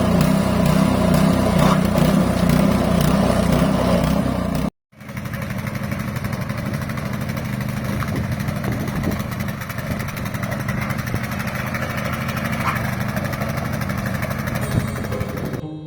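Haiger HGKCM21 snowblower's small petrol engine running after repair, with a regular pulsing beat. About five seconds in it cuts out for a moment, then runs on more evenly.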